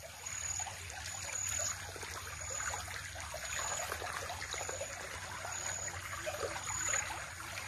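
Shallow stream trickling steadily over pebbles and gravel, with a faint short high tone repeating about once a second.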